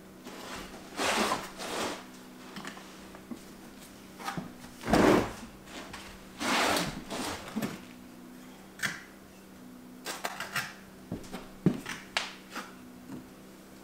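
Rocks being handled and set into mortar for a stone hearth wall: scrapes, clicks and knocks, with a heavy thud about five seconds in.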